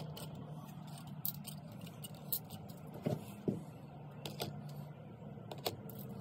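Scattered light clicks and clinks of loose chrome steel sockets being handled in their plastic case, over a steady low hum.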